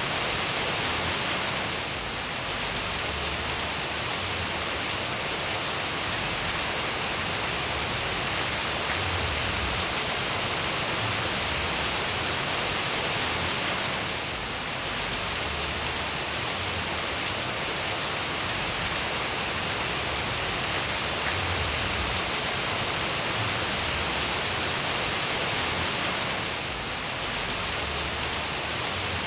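Steady rain falling, an even hiss with the odd separate drop ticking through it; the loudness dips slightly for a moment about every twelve seconds.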